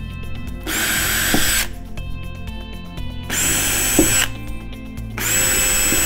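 Cordless drill boring holes in the wall for wall plugs, run in three bursts of about a second each with a steady high motor whine.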